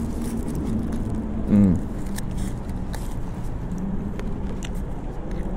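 Chewing a chicken pita wrap with the mouth closed, faint clicks and foil crinkle, over a steady low engine hum from nearby traffic. About a second and a half in comes a short, louder sound that falls in pitch.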